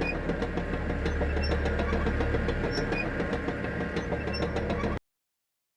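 A heavy gate moving: a steady low rumble with dense rattling and clicking, lasting about five seconds and cutting off abruptly.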